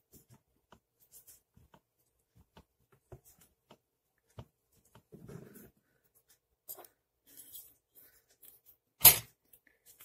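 Faint clicks and rustles of a disassembled plastic hair dryer being handled and its motor shaft wiped with a tissue, with one much louder brief handling noise about nine seconds in.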